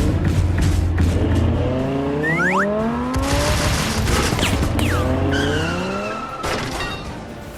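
Car engine sound effect revving up twice, each rev a rising pitch, with short high squeals like tyres, over a bed of background music that fades near the end.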